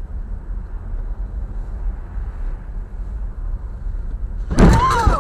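Steady low rumble of a car's engine and road noise heard inside the cabin. About four and a half seconds in comes a sudden loud knock as the car bumps into the back of the car ahead.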